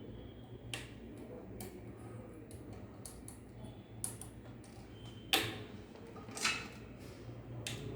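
About six sharp clicks and knocks at uneven intervals, the loudest a little past five seconds in, over a steady low hum.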